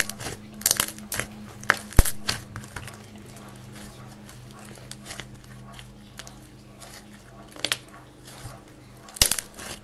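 Hands squishing and poking soft white clay slime, giving irregular sticky clicks and crackles. They come thickest in the first couple of seconds and again near the end, over a steady low hum.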